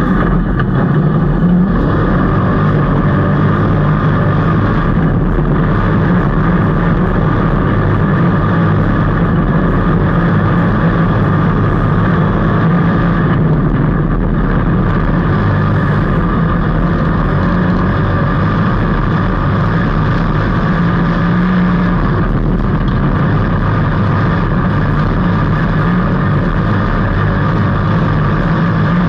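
Dirt track race car engine running steadily at speed, a continuous loud drone with only small changes in pitch.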